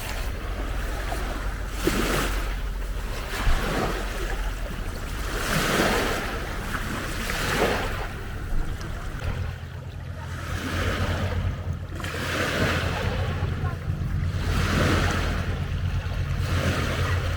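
Small lake waves lapping against the shore, a new splash every second or two. A low steady hum runs underneath and changes pitch about halfway through.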